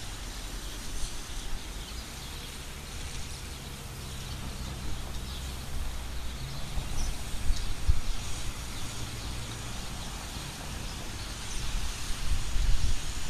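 Street traffic ambience: cars driving slowly through a rain-wet intersection, with a low engine rumble and tyre noise that swells about eight seconds in and again near the end.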